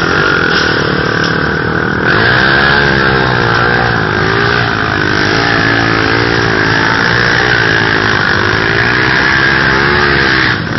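Quad (ATV) engine running loudly and revving up and down repeatedly as it drives through muddy water.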